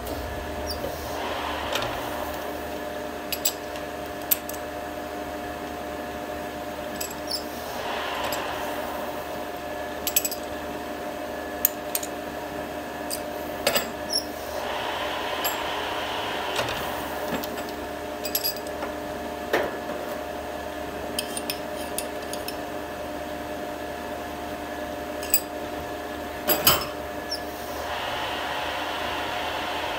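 Metal clinks and knocks of a chuck key and chuck jaws as a thread tap is clamped in a lathe's four-jaw chuck, over a steady machine hum.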